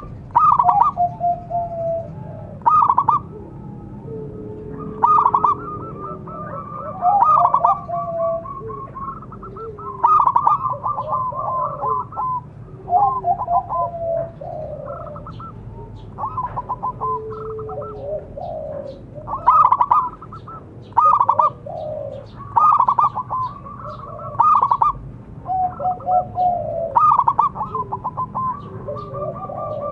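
Local zebra dove (perkutut) cooing: phrases of rapid staccato notes, repeated every second or two. A lower, fainter coo comes in twice.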